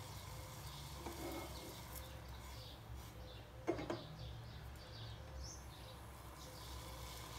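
Faint steady low hum of a gas stove burner on a low flame under a saucepan of tea heating, with birds chirping in the background. A short louder sound comes about three and a half seconds in.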